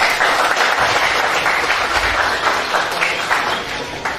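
A crowd applauding, many hands clapping at once, dying down near the end.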